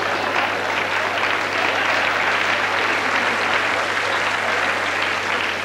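A large theatre audience applauding steadily after a punchline.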